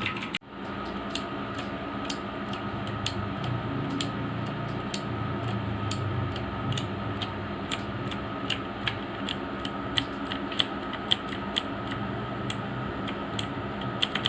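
Keys of a Tecware Phantom mechanical keyboard with clicky Outemu Blue switches being pressed one by one at an uneven pace, each a sharp click, quickening into a fast run of keystrokes near the end. A steady hum runs underneath.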